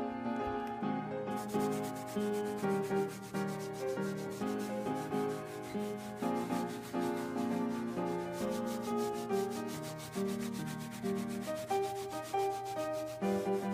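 A hand rubbing back and forth over shag carpet pile in quick, repeated scratchy strokes, starting about a second in, over background music with changing melodic notes.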